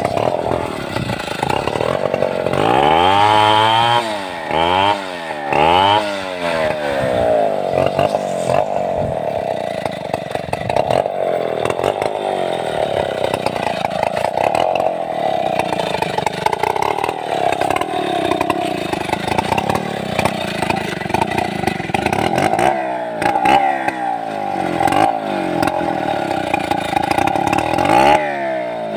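Stihl 070 two-stroke chainsaw revved up and down three times in quick succession, then held at high speed with its pitch wavering as it cuts through sengon (albizia) wood. It is revved again twice near the end.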